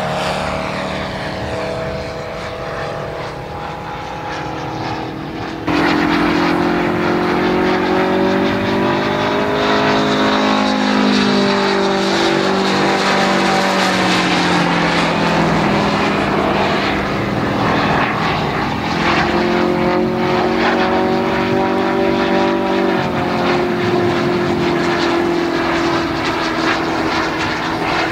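Engines of large radio-controlled scale warbird models flying past. First a Focke-Wulf Fw 190 model passes low with its engine note falling; then, after an abrupt jump in loudness about six seconds in, comes the louder engine of a Messerschmitt Me262 model, its pitch sliding down and later back up as it flies overhead.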